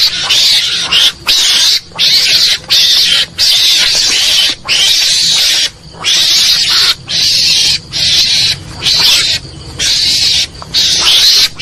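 Mongoose (garangan) calls played as a hunting lure: a long, irregular string of harsh, hissing screeches, each lasting under about a second, broken by short gaps.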